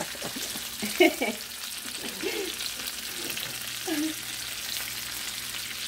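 Oxtail pieces searing in hot oil in a skillet, sizzling steadily.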